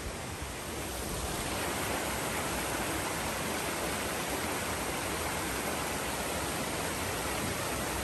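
Shallow rocky stream rushing steadily over and between boulders in small cascades, a little louder from about a second and a half in.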